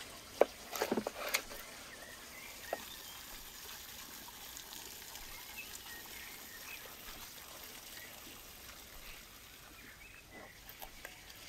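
A knife chopping through roast chicken onto a wooden cutting board: one sharp knock about half a second in, a quick run of cuts around a second in, and one more cut near three seconds. After that comes faint outdoor background with small bird chirps.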